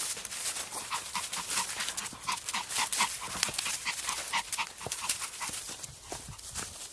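Small Maltese dog panting quickly and steadily, about four to five breaths a second, while out hiking.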